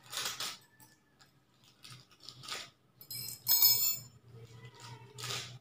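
Small items being unwrapped and handled by hand: short crinkling rustles, and about three seconds in a bright clinking jingle that rings for about a second.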